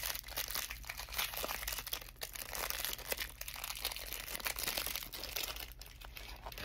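Crackers' plastic wrapper crinkling and crackling as it is pulled open, full of small sharp crackles; it eases off near the end.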